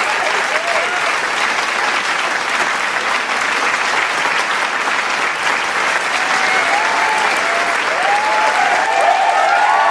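Large crowd applauding steadily, dense clapping with scattered cheers and shouts that grow in the last few seconds.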